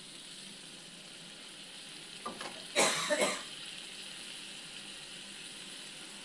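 Potato and eggplant curry sizzling and bubbling in a steel pot, a steady hiss. About two and a half seconds in, a brief cluster of louder, sharp sounds lasts about a second.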